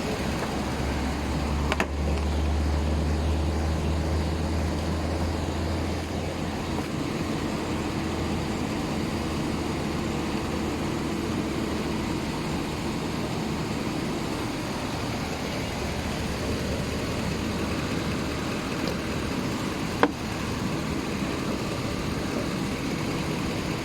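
2008 Chevrolet Tahoe's engine idling steadily with the air conditioning running while refrigerant is being charged into the system. A deep hum fades out about six seconds in, and there is a sharp click near the end.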